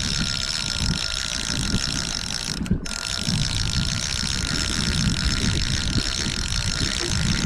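Fishing reel being cranked steadily, its gears giving a fast ratcheting whirr as a fish is wound up from the bottom, over a low rumble. The cranking breaks off for a moment about three seconds in.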